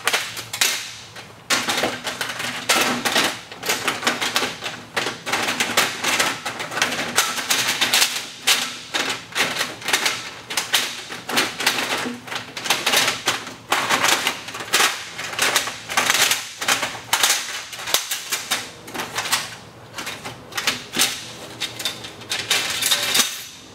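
Rolling shutter curtain being fed over its axle and down the guide rails, its slats rattling and clicking against each other and the rails in a dense, irregular clatter that stops near the end as the curtain seats at the bottom.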